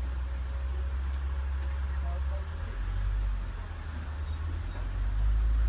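Safari tour truck's engine running with a steady low rumble, its note shifting about halfway through as the truck changes speed.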